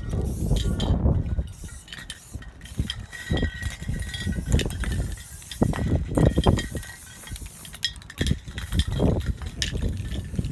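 Wind rumbling and buffeting on the microphone, with scattered sharp clicks and clinks.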